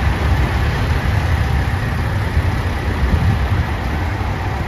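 JR Shikoku 2700 series limited-express diesel railcar rolling slowly into a platform, its diesel engines running with a steady low rumble.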